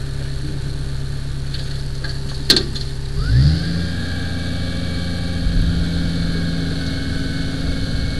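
Aerial ladder fire truck's engine idling. After a sharp click about two and a half seconds in, it speeds up and holds a higher steady speed, with a faint whine over it.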